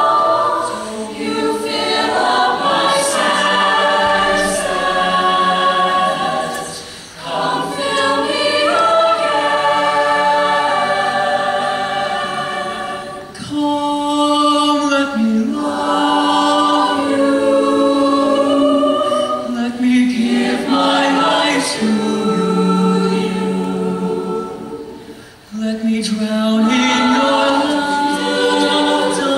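Mixed-voice show choir singing in harmony, holding long chords, with two brief breaks between phrases.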